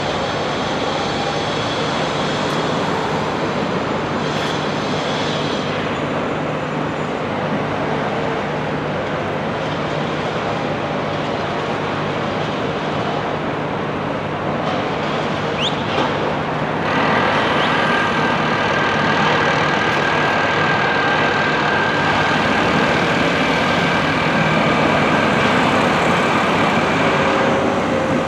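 Steady traffic and construction-site din with no speech. About 17 s in, a machine whine with several steady tones joins it, slightly louder, and stops shortly before the end.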